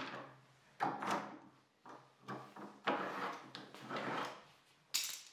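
Orange-handled bar clamps being loosened and slid off the edge of a wooden workbench: a run of short scraping, rattling handling sounds as the clamp jaws move along their bars, then a sharp click about five seconds in.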